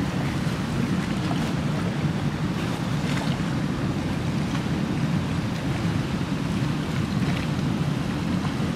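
Steady wind rumble on the microphone, mixed with water rushing past a small boat under way.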